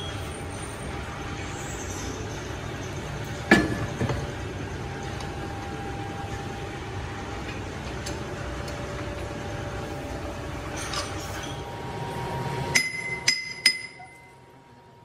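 Cast truck wheel hub being set in a large lathe's four-jaw chuck: one loud metal knock about three and a half seconds in over a steady workshop background. Near the end comes a quick run of four sharp, ringing hammer taps on the casting, tapping it true in the chuck.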